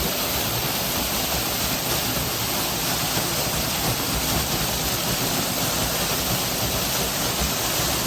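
Waterfall falling close by: a steady, even rush of water.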